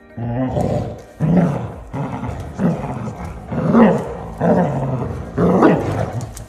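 Basset hounds growling in play while tugging on a toy: a run of about six low growls, each under a second, with the loudest near the middle and near the end.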